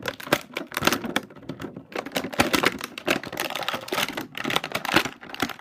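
Crinkly plastic foil toy packaging being torn open and handled, a dense run of crackles and clicks.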